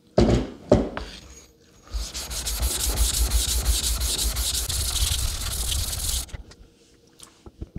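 Atoma diamond plate rubbed rapidly back and forth, face-down on a wet Shapton 1K whetstone, rasping steadily for about four seconds to raise a slurry. Two short knocks come just before the rubbing.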